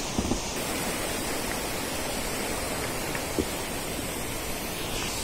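Steady rushing of a mountain stream, with a few light clicks.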